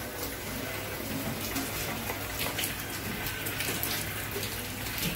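Steady rush and splash of running water.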